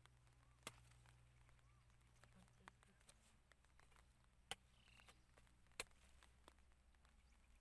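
Faint knocks of a small hand spade chopping into hard, cracked dry mud: a few sharp, separate strikes a second or two apart over near silence.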